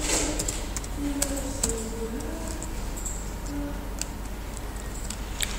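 Computer keyboard keys clicking in scattered, irregular taps as code is typed.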